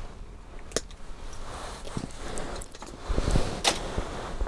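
Plastic kit parts snipped off the sprue with side cutters: two sharp snips, about a second in and near the end, with handling rustle and light knocks of parts between them.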